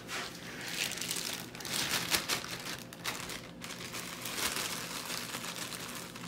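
Plastic bag of chopped nuts crinkling irregularly as it is handled and shaken.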